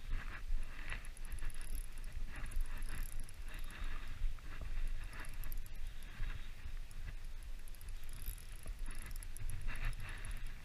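Wind buffeting the camera's microphone in a steady low rumble, with irregular hissy scraping sounds over it.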